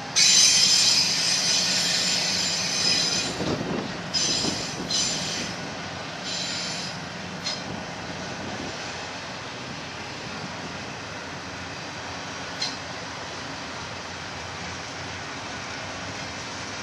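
Wheels of a double-stack container train's well cars squealing loudly as the cars roll past, a high-pitched squeal for the first few seconds, then in shorter bursts. It then settles into a steady rolling rumble of wheels on rail, with one sharp clack about three quarters through.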